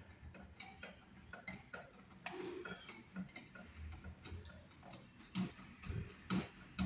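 Hand screwdriver turning a screw in a wall switch box: light, irregular clicks and ticks of the tip working in the screw head, with a few louder clicks near the end.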